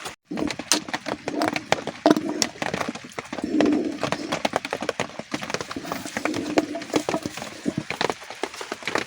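Sheep moving about, their hooves clattering in quick, irregular knocks.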